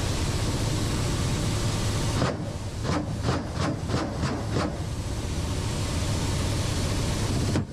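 Helicopter cockpit noise of a Ka-52: a steady low drone of engines and rotors. About two seconds in, a run of regular sharp knocks, roughly three a second, comes through for a couple of seconds before the steady drone returns.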